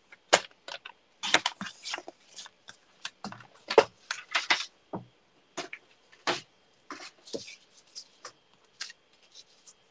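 Sliding-blade paper trimmer cutting patterned paper, with the paper and trimmer handled on a craft mat: a run of irregular clicks and short scraping swishes.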